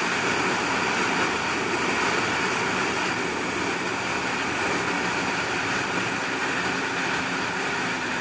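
Steady riding noise from a Honda CBR600RR's inline-four engine at a moderate cruising speed, mixed with wind rush, picked up through a helmet headset microphone.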